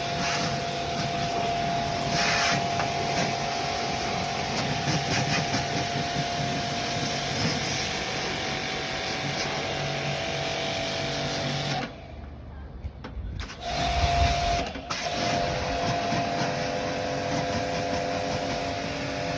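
Electric pressure washer running with a steady motor whine and the hiss of spray, cutting out for about a second and a half about twelve seconds in, then starting again.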